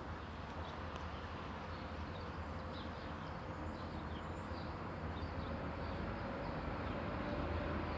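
Low, steady rumble of a double-headed pair of MAN 2000 diesel locomotives approaching, growing slowly louder, with short high chirps in the background.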